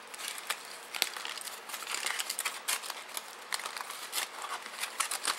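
Aluminium foil crinkling as it is unwrapped by hand from a cooked ear of corn on the cob, an irregular run of sharp crackles.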